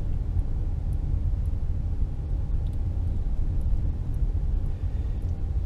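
Steady low rumble of a car driving slowly, its engine and tyres on the road heard from inside the cabin.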